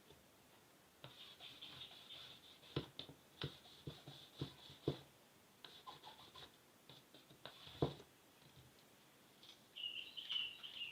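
Tailor's chalk scratching across fabric as a straight line is drawn, in several strokes, with a few sharp light knocks in between.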